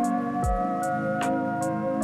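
Background music: held synth chords over a steady beat of light ticks a little over twice a second, with a deep drum hit that drops in pitch about half a second in.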